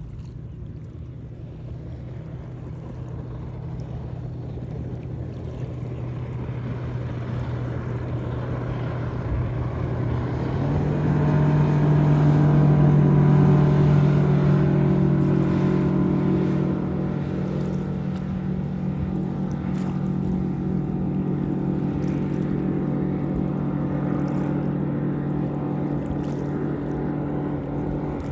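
Mercury 150 outboard running a boat at speed: a steady engine drone that grows louder, then jumps abruptly up in pitch about ten seconds in and holds at the higher note, with wind and water rush underneath.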